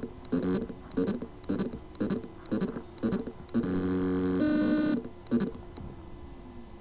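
A 6 TB WD Blue 3.5-inch hard drive with loose spindle-motor contacts on its circuit board: the motor spins but cannot reach full speed, giving pulsing whirring tones about twice a second, a longer steady tone a little past halfway, then a tone that slides down and fades.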